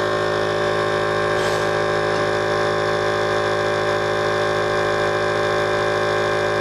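All In One Wine Pump's electric vacuum pump running with a steady hum, pulling vacuum to draw wine up into a bottle.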